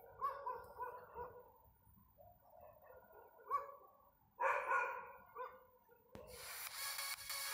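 A street dog barks in short bursts, the loudest cluster about four and a half seconds in. Music comes in about six seconds in.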